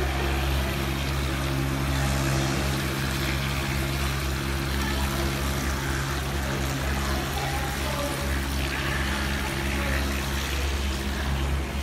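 Stainless-steel intestine casing scraper running: a steady motor hum with a constant hiss over it as casings are fed between its rollers.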